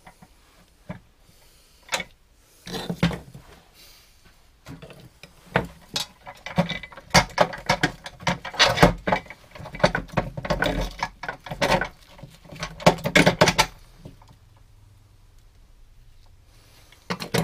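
Metal clinks, rattles and scrapes as a steel repair section and its bolts are handled and worked on a workbench, coming thick and fast through the middle, then dying away for a few seconds before one last click.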